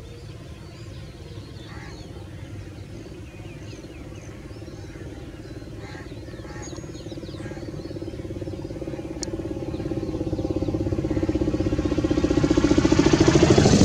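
A motor vehicle's engine approaching, growing steadily louder through the second half.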